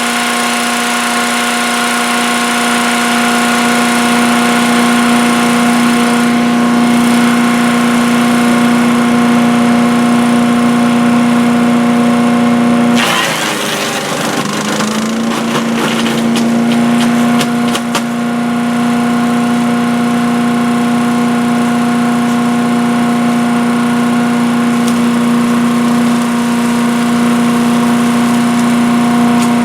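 Earthquake 212cc wood chipper-shredder's single-cylinder four-stroke engine running steadily at high speed. About halfway through, material fed into the shredder is chewed up with a burst of crackling and snapping, and the engine briefly bogs down under the load before recovering to its steady pitch.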